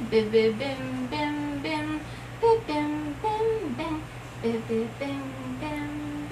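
A woman humming or singing a wordless melody in short, held notes that step up and down.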